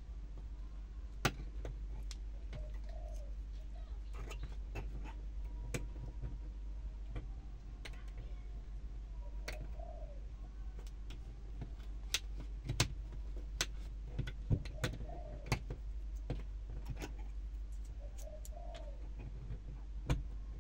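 Sharp plastic clicks and taps from hands working an LED bulb in a car's roof dome light housing, bunched together about two-thirds of the way in. A dove coos faintly, a short call every few seconds.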